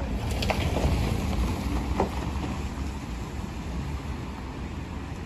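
Steady outdoor noise of wind on the microphone over a low rumble of vehicles, with a few short knocks in the first two seconds.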